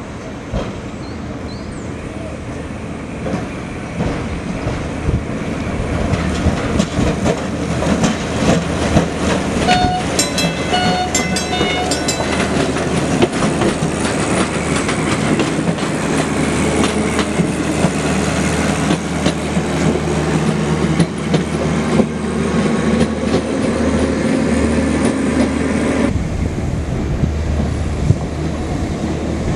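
Electric tram running along its track, approaching and passing close by, with its wheels rumbling and clicking over the rails. The rumble grows louder as it nears. A few short high-pitched tones come about ten seconds in.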